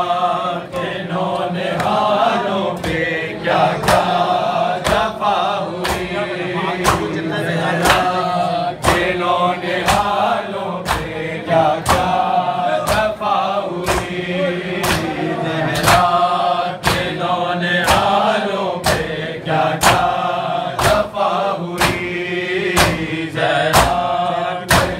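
A group of men chanting a Shia noha (Urdu mourning lament) in unison, with sharp hand-on-chest slaps of matam keeping a steady beat under the chant.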